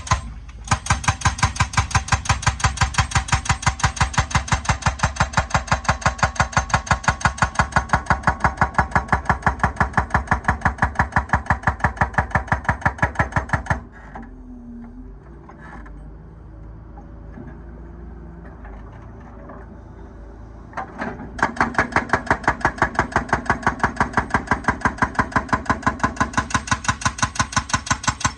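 Excavator hydraulic breaker hammering, a fast even rattle of blows about seven a second. It stops at about 14 s, leaving the excavator's engine running quieter, and starts hammering again about 7 s later.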